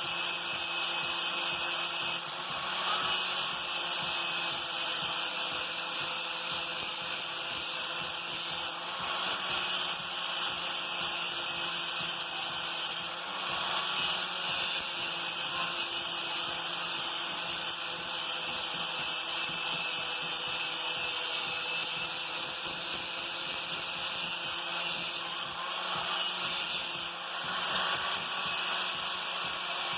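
Electric hand grinder running steadily, grinding an edge back onto a dull steel lawn mower blade, with a few brief dips in the sound.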